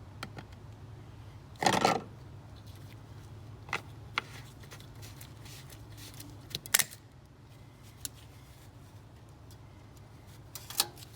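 A few scattered handling knocks and clicks over a low steady hum, the loudest a short knock about two seconds in and a sharp click about seven seconds in.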